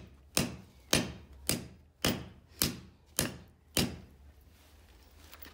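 Repeated metal-on-metal blows struck on the iron chain's fastening to knock it loose after oiling: seven sharp strikes about two a second, which stop about four seconds in.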